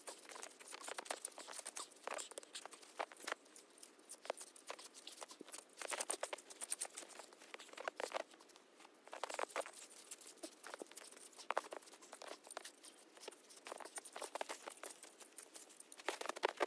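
A small hand shovel chopping and scraping into packed snow: a run of irregular crunching strokes that thins out briefly around the middle.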